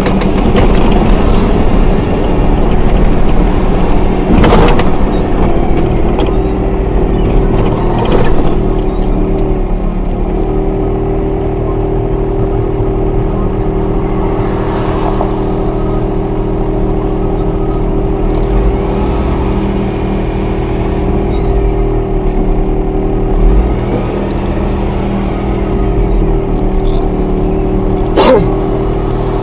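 Vehicle driving noise heard from inside the cab: steady engine and road rumble with a steady hum, and a thin high whine throughout. Three sharp knocks stand out, about four and eight seconds in and near the end.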